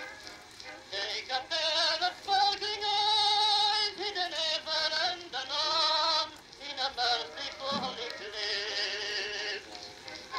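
Edison cylinder phonograph playing a Blue Amberol celluloid cylinder: an old recording of a singer with long held notes, thin and with little bass.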